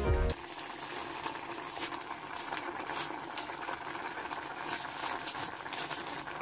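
Pot of curry with bamboo shoots simmering on a gas stove: a steady bubbling hiss with many small pops and ticks.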